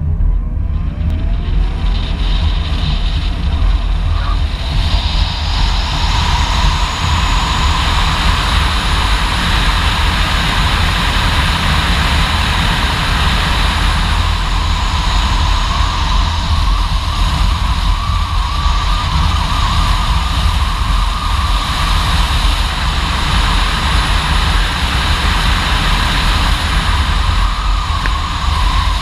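A 2017 Chevy Bolt EV at speed on an autocross run: heavy wind and road noise on the car-mounted camera, with the electric drive's whine rising in pitch in the first second as it launches. After that a high whine wavers up and down through the corners.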